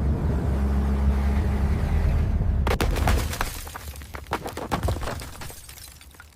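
Car crash sound effect: a heavy low rumble, then about two and a half seconds in a sudden crunch followed by a spray of cracking, shattering debris that fades away.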